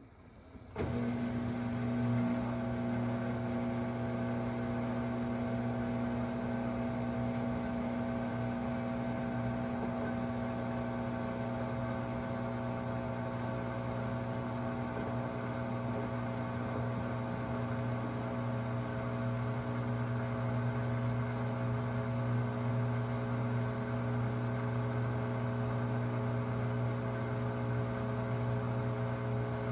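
Samsung WW25B6900AW front-load washer making a loud, steady buzz that starts abruptly about a second in and holds unchanged. The owner ties this louder buzzing to the drain phase when there is no water left to drain, a fault present since the machine's first month.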